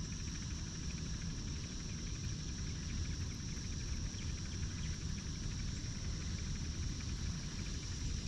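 Steady outdoor background noise: a constant high-pitched hum over a low rumble, with no single event standing out.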